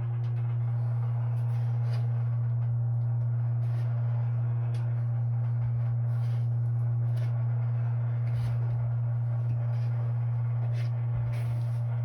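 Water heater plumbing vibrating with a steady low hum, one held pitch with fainter overtones above it, and a few light taps and rubs scattered through it.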